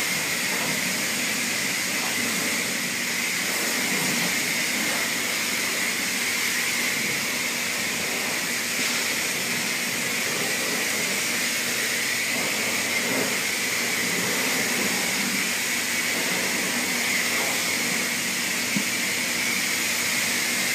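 Steady hiss with a faint high whine, unchanging throughout.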